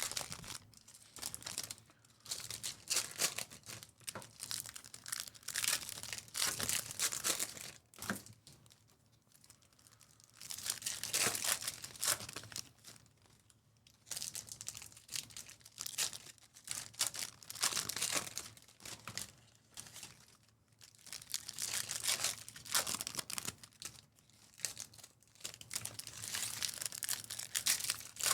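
Foil trading-card pack wrappers being torn open and crumpled by hand, in irregular bursts of ripping and crinkling with short pauses between packs.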